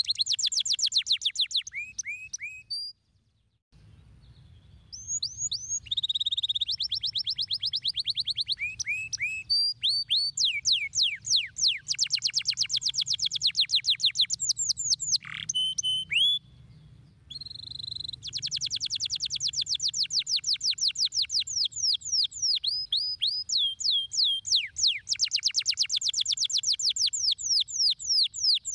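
Domestic canary singing: long fast trills of rapidly repeated falling whistled notes, broken by short pauses about three seconds in and around the middle.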